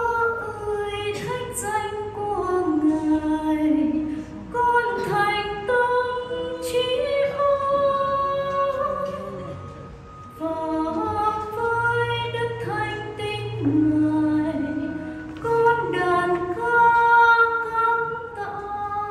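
A woman's voice singing a slow liturgical melody in phrases with held notes, carried by the chapel's sound system.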